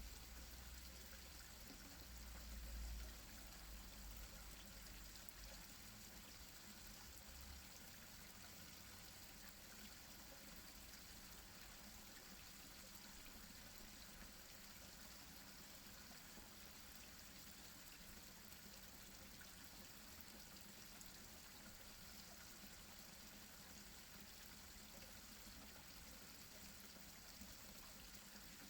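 Garden pond waterfall, water falling and trickling steadily, faint. A brief low rumble about three seconds in.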